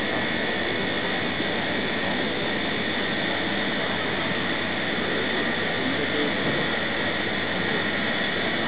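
Mobile crane's engine running steadily: an even rushing noise with a steady high whine over it.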